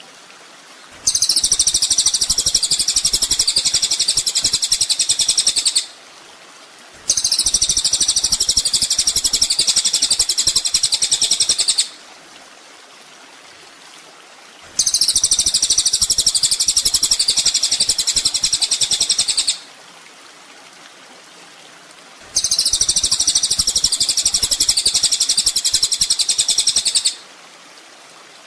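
Kolibri ninja (a sunbird) singing: four long, fast, high-pitched trilling phrases of about five seconds each, with short pauses between them.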